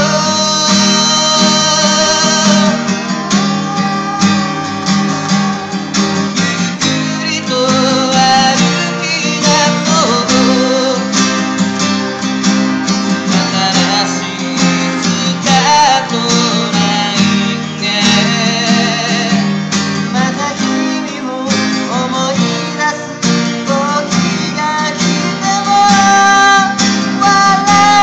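Two acoustic guitars played together as an instrumental passage, strumming chords steadily.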